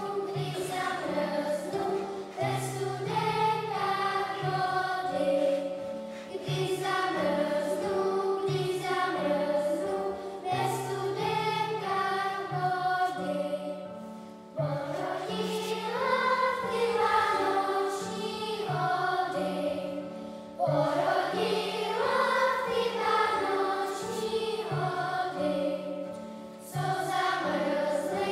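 Primary-school children's choir singing in phrases of about six seconds, with a brief break between phrases.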